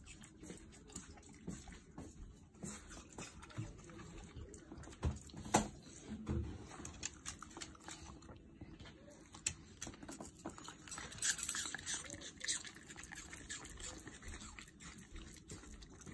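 A Shiba Inu eating apple pieces: scattered wet smacking, licking and crunching sounds, with a sharper click about five and a half seconds in.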